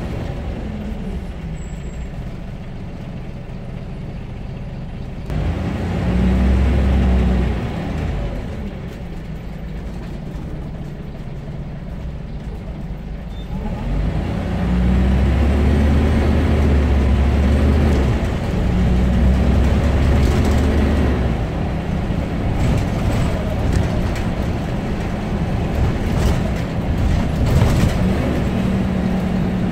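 Scania OmniCity bus's engine heard from inside the saloon as the bus drives. It rises in pitch and level as the bus speeds up, once about five seconds in and again from about fourteen seconds for several seconds, and eases off in between.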